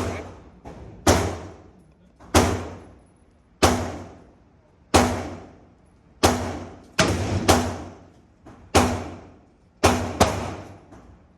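LWRC 5.56 rifle firing single shots at a slow, steady pace, about one every second and a quarter, with a quick pair near the end. Each shot trails off in a long echo.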